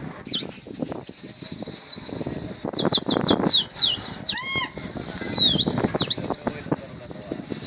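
A person whistling shrill, high notes: three long wavering notes of one to two seconds, the middle one falling away at its end, with a quick run of short gliding whistles about three seconds in.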